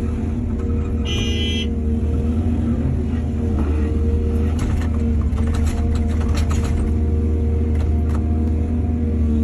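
Heavy diesel machinery running steadily with a low, even engine hum. There is a brief high tone about a second in, and a run of knocks and clatters between about five and eight seconds in.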